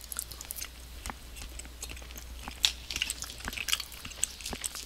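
Eating sounds: a metal spoon lightly clicking and scraping in a clear plastic trifle cup, and chewing, as a series of short, irregular clicks.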